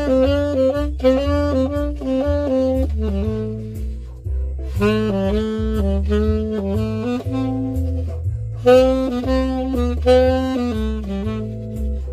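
Yamaha Custom Z tenor saxophone improvising jazz-blues phrases, played along with a recorded backing track that carries a steady bass line underneath.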